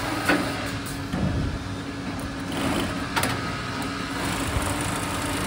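HCW S-CT350 automatic curtain pinch pleating machine running with a steady mechanical hum, with two sharp clicks, one near the start and one about three seconds in.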